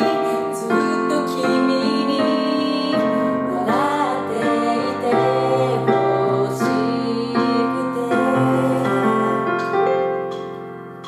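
Two women's voices singing the same melody in unison over a Casio digital keyboard playing piano chords. The phrase ends on a held note that fades away near the end.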